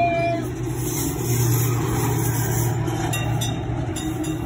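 Electric tram (Sheffield Corporation No. 264) running on its rails at close range: a steady low hum with rolling wheel-on-rail noise that swells in the middle and eases off near the end.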